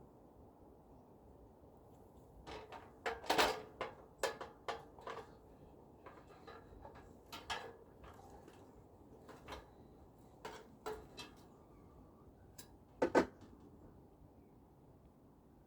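Irregular knocks and clatters of hard pieces being handled, a cluster of them a few seconds in, then scattered lighter ones, and one loud double knock near the end.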